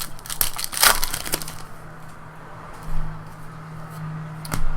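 Trading-card pack wrapper crinkling and cards being handled: a burst of rustling and sharp clicks in the first second and a half, then mostly quiet handling with one more click near the end.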